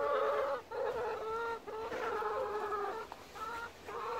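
Chickens calling: a run of four or five drawn-out, pitched calls, one after another with short gaps.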